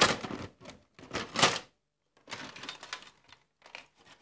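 PlayStation 3 'fat' plastic top cover and casing clacking and rattling as it is pried at and handled, in irregular bursts of sharp clicks with short gaps between them.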